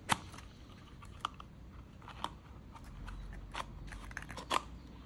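Small orange hard-plastic case of a backpacking stove being pulled open by hand: a sharp click just as it starts, then a few lighter clicks and taps as the two halves separate and the metal stove inside shifts.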